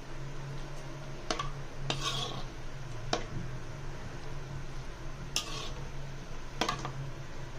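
Slotted metal spatula stirring cut okra in oil in a metal wok, scraping and clanking against the pan about five times at uneven intervals. A steady low hum runs underneath.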